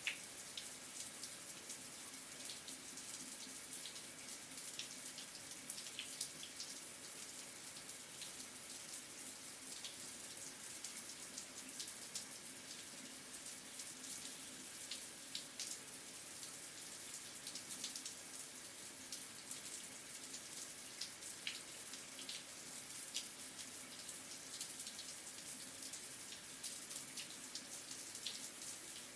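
Water running from a shower head: a steady spray hiss with many small droplet splashes.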